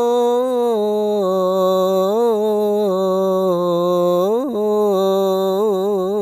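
A man's voice chanting the adhan in maqam Jiharkah, holding the drawn-out melisma of "rasul" in "ashhadu anna Muhammadan rasulullah" with wavering ornaments. About four and a half seconds in, the voice slides sharply upward, breaks briefly, then settles back onto the held note.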